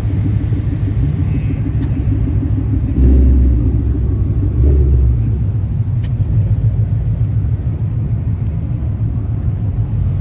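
A car engine rumbling at low revs, with two brief louder surges about three and four and a half seconds in.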